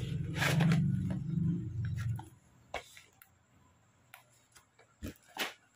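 Paperboard boxes of wet cat food being handled and lifted out of a cardboard shipping carton, giving several short, sharp taps and knocks in the second half. A low rumble fades out during the first two seconds.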